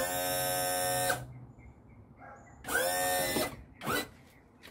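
Mercury outboard's power trim/tilt motor and pump running in two short bursts, about a second and then under a second, tilting the engine; the second burst starts with a rising whine as the motor spins up. A sharp knock follows near the end.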